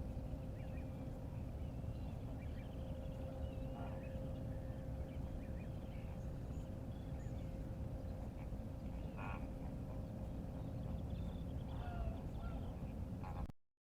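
Flamingos calling: scattered short honks and chatter, some in quick runs, over a steady low background rumble and a faint steady hum.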